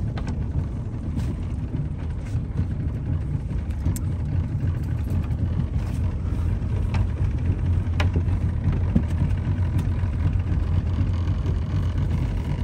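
A boat's motor running steadily as the boat moves along, with a low, even rumble.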